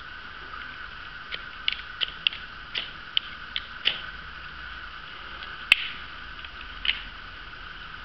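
Small ferro rod from a multitool scraped with a striker: about eight quick scrapes in under three seconds, striking sparks. Then comes a sharp click, with a softer one about a second later.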